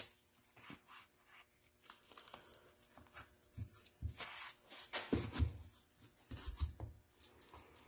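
Rustling and scattered light knocks and thumps of tools being handled and moved around in a fabric tool bag.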